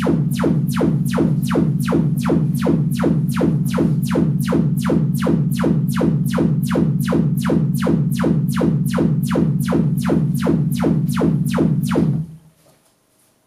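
Sonos Play:5 speaker playing its Trueplay room-tuning test signal: a fast, even series of sweeping chirps, about three and a half a second, over a steady low drone. The speaker sends the sound out so that the iPad's microphone can hear it reflect off the walls and the speaker can set its equalizer for the room. It cuts off suddenly about twelve seconds in, when the tuning is complete.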